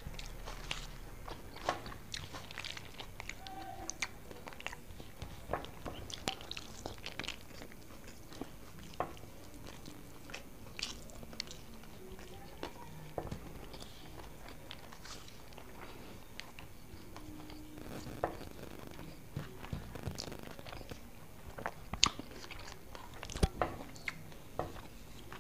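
A man eating rice by hand, close to the microphone: chewing and mouth smacks with many scattered short clicks, a few sharper ones near the end.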